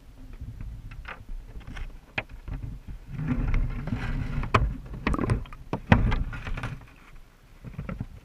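Muffled knocks and clunks over a low rumble, picked up by a GoPro in its waterproof housing inside a submerged wire-mesh crawdad trap as the trap shifts. The knocking is busiest in the middle few seconds.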